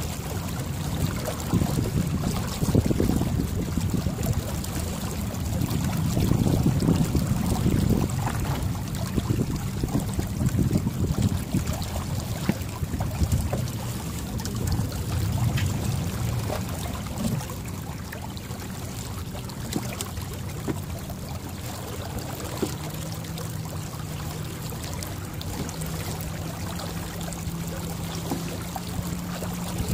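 Water running and trickling along the hull of a J24 sailboat under sail, with wind buffeting the microphone. About three-quarters of the way through a faint steady hum joins in.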